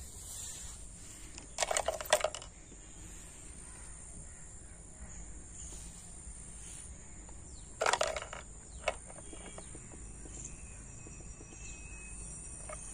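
Crickets chirring steadily at a high pitch, with two short, louder noises about two seconds in and about eight seconds in, and a few faint clicks.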